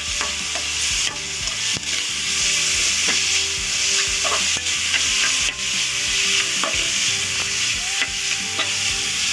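Shredded cabbage sizzling in hot oil in a metal pot while a spoon stirs it, with a few sharp knocks of the spoon against the pot.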